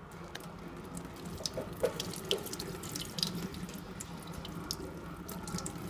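Boiling water poured from a stainless kettle spout onto scored pork rind on a wire rack, splashing and dripping with many small irregular splats. The water is scalding the rind to open the score cuts for crackling.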